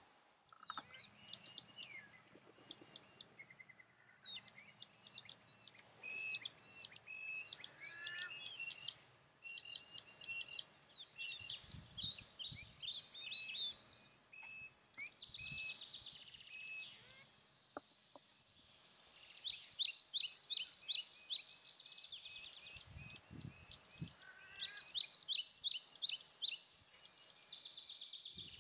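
A flock of whistling ducks calling: many short, high twittering whistles in quick runs, loudest about a third of the way in and again in the last third.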